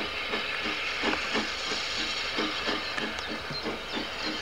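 Steam tank locomotive approaching slowly: a steady hiss of steam with soft, repeated chuffs about three a second.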